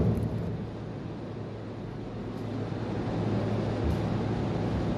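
Electric animal hair clipper buzzing steadily as it shaves fur from the cat's hindquarters, clipping the surgical site before neutering.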